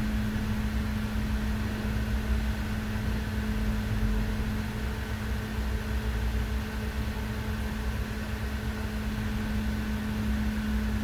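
Server rack cooling fans running steadily: an even rush of air with a constant hum and a low rumble beneath.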